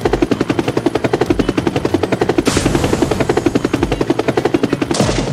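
Cartoon helicopter rotor sound effect: a fast, even chopping of about a dozen beats a second, with a short rush of hiss about two and a half seconds in.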